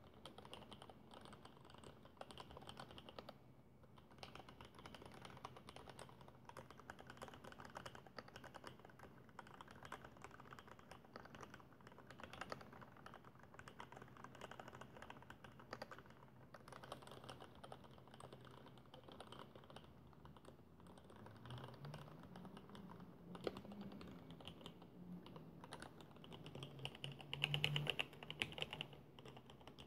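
Continuous typing on a custom mechanical keyboard with 55 g vintage Cherry MX Black linear switches in an acrylic case: a steady patter of keystrokes, with a louder flurry of keys near the end.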